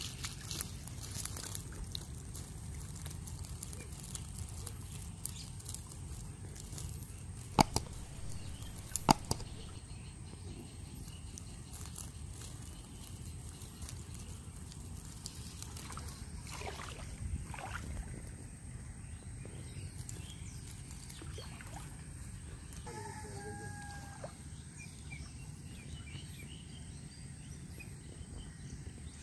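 Shallow water sloshing and dripping as a long ring trap net holding small fish is handled, over a steady low rumble, with two sharp clicks about eight and nine seconds in.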